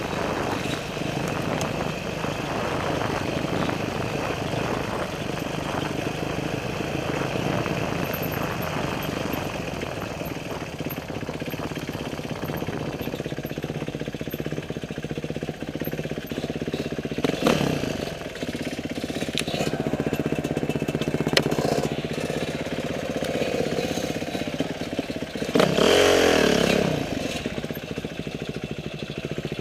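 Motorcycle engine running steadily under way, with a brief rev rising and falling in pitch near the end.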